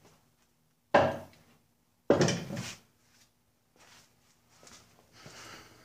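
Two loud clunks about a second apart as the outboard's just-removed lower unit is set down, followed by faint scuffing near the end.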